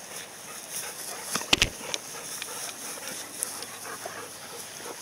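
Golden retrievers playing, with two sharp yelping barks close by, the loudest sounds, about a second and a half in.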